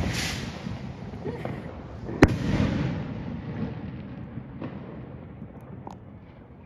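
New Year's fireworks and firecrackers going off: a sharp bang at the start and another about two seconds in, each trailing off in a rolling echo, with a few smaller pops after.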